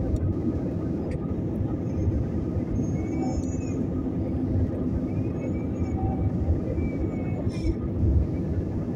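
Steady roar of an airliner's turbofan engines and rushing air, heard from inside the passenger cabin at low altitude.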